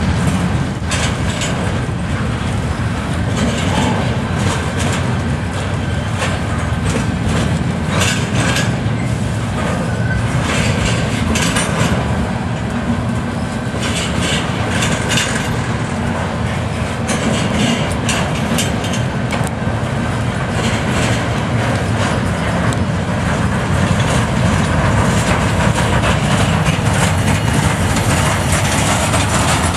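Bulkhead flatcars loaded with steel slabs rolling past in a CSX freight train: a steady loud rumble of steel wheels on rail, with irregular clicking as the wheels cross rail joints.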